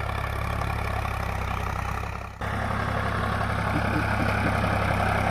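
Sonalika DI 745 tractor's three-cylinder diesel engine running steadily under load while pulling a disc plough through the soil. There is a brief dip in the sound about two and a half seconds in.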